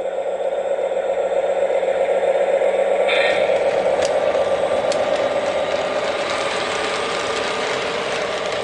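Lionel Lion Chief Mystery Machine O-gauge FT diesel train running along the track: a steady rumble and rattle of the motor and wheels, a little louder a few seconds in as it passes, then slowly easing off.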